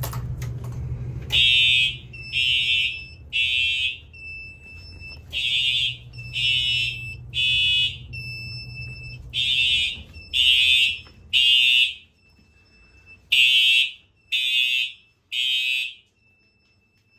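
Fire alarm horns sound in the temporal-three evacuation pattern, three short blasts then a pause, repeated, set off by the panel's manual evacuation switch. The horns start about a second and a half in, and four groups of three sound. A fainter steady high tone holds between the groups.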